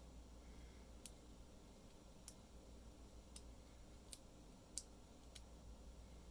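Faint, scattered small clicks of metal lock parts being handled, about six in all, as the plug of a pin-tumbler lock is worked out of its housing with a plug follower.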